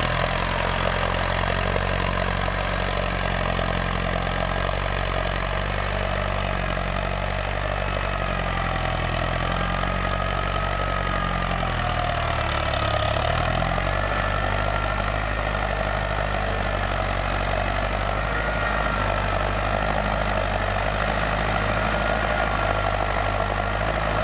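Ford 6610 tractor's four-cylinder diesel engine running steadily under load as it pulls a disc harrow through dry soil, its pitch wavering up and down partway through.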